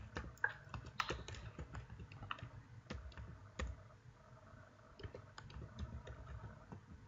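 Faint, irregular clicks of a computer mouse clicking through a software setup wizard, over a low steady hum.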